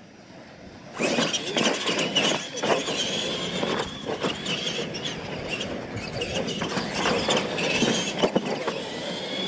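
Two radio-controlled monster trucks launching about a second in and racing over a dirt track, their motors running with a high whine that rises and falls as the throttle changes. Tyres scrabble on the dirt, and sharp knocks come from the trucks hitting ramps and landing jumps.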